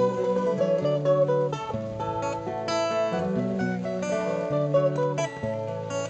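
Acoustic guitar strumming chords with a quick picked string melody over it, with no singing: an instrumental break in a folk-pop song.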